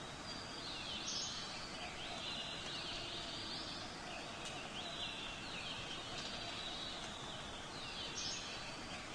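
Birds chirping and calling in repeated short phrases over a steady hiss of background noise.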